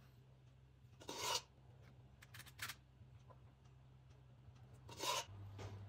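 A few short scrapes of a metal spoon as cake batter is spooned into paper cupcake liners: a louder scrape about a second in, two small ones in the middle and another near the end, over a faint low hum.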